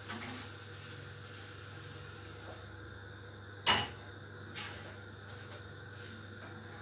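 One sharp clank of a steel pot knocked on the gas stove, about three and a half seconds in, with a couple of lighter knocks of cookware around it over a low steady hum.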